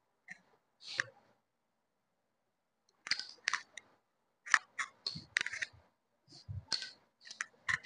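Suit fabric being smoothed and folded by hand on a floor: a string of short rustles and light taps. There are a few near the start, a pause of about two seconds, then a quicker run.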